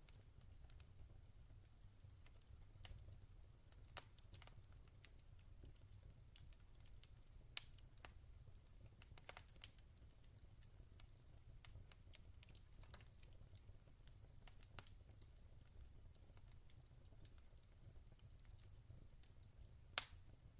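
Log fire crackling faintly, with irregular sharp pops and snaps over a low steady rumble; the loudest pop comes near the end.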